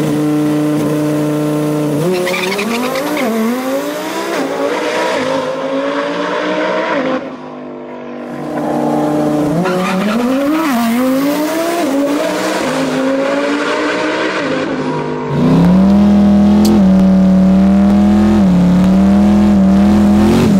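Twin-turbo Lamborghini Huracán V10 accelerating hard down a drag strip: twice the revs climb in steps as it shifts up through the gears. About three-quarters of the way through, a twin-turbo first-generation Camaro SS takes over, held at steady high revs in a burnout with its rear tyres spinning. This is the loudest part.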